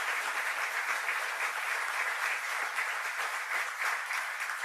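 Audience applauding steadily, a dense crowd of many people clapping to recognize an honoured guest, tapering off slowly near the end.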